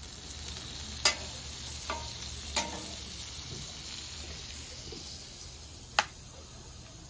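Butter sizzling as it melts on a hot steel flat-top griddle. The sizzle fades over the last few seconds. Sharp clicks of a metal spatula against the griddle plate come about a second in and again about two and a half seconds in, with one more sharp knock near the end.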